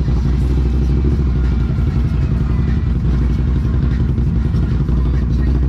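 ATV engine running steadily, without revving.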